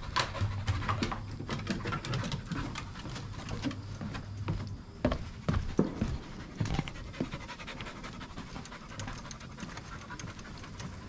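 An Aussiedoodle puppy panting, mixed with short clicks and steps on wooden deck boards and grating.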